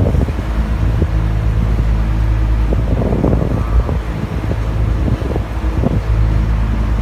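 Boat engine running with a steady low drone, with wind buffeting the microphone.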